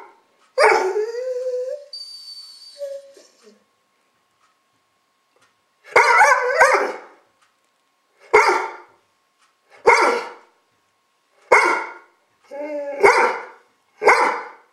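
Chocolate Labrador barking: a drawn-out, bending bark-howl about a second in, then after a pause a string of about six single barks, roughly one every one and a half seconds.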